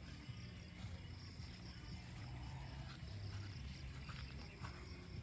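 Faint outdoor ambience: a steady high insect drone, like crickets, over a constant low rumble.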